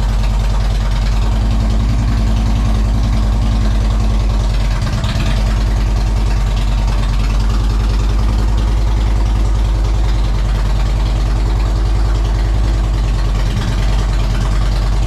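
A 2007 Harley-Davidson Road King Custom's Twin Cam 96 V-twin idling steadily with a fast, even beat.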